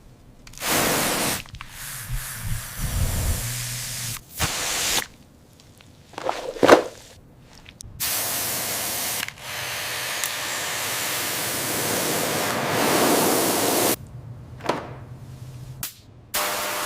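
Hissing, spray-like noise in several stretches that start and stop abruptly, with a short sharp knock about seven seconds in.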